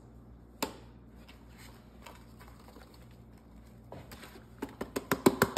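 A cardboard box of baking soda is shaken and tapped over a metal sheet pan. There is one sharp knock about half a second in, then near the end a quick run of sharp taps, several a second, growing louder.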